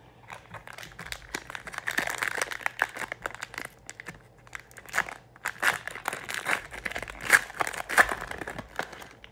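A trading card pack wrapper being torn open and crinkled in the hands: a dense run of irregular crackles and rustles, loudest in the second half.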